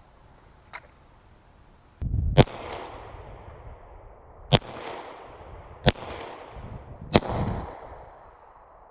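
Four one-handed pistol shots from a 9mm handgun, fired slowly at irregular intervals of about one and a half to two seconds. Each sharp crack is followed by a fading echo.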